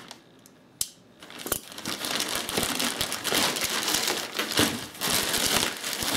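Plastic poly mailer bag crinkling and rustling as it is handled and pulled open, after a single sharp click about a second in.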